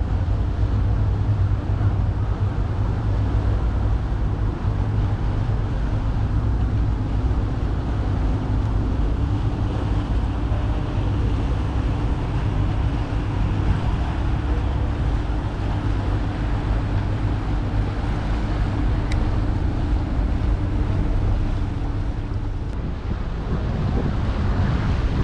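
A passenger boat's engine running with a steady low rumble, over the rush of water along the hull and wind buffeting the microphone. A faint steady hum in the engine sound fades out near the end.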